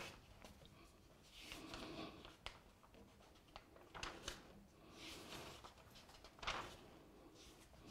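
Paper pages of an old bound register being turned and handled by hand: several soft rustles and swishes with small paper clicks.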